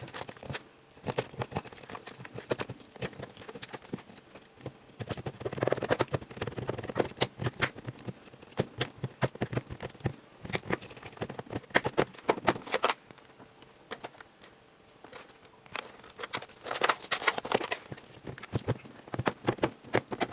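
Digging at the plaster block of a toy gem excavation kit with a small tool: irregular quick clicks, scrapes and crumbling ticks, in louder spells about six, eleven to thirteen, and seventeen seconds in.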